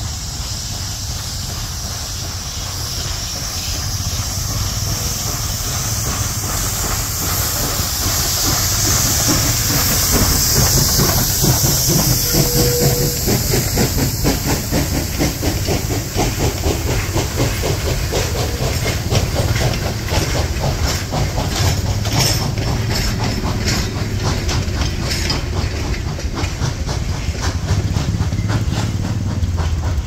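Pennsylvania Railroad 0-6-0 steam switcher No. 643 and its short train of coaches passing. Steam hissing builds and is loudest in the first half, then wheels click rhythmically over the rail joints as the cars roll by.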